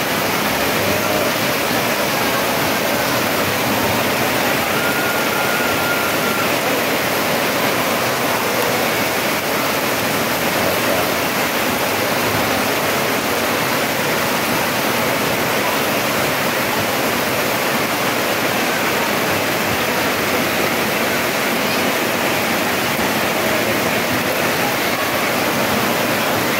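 Heavy rain falling steadily, a dense unbroken hiss.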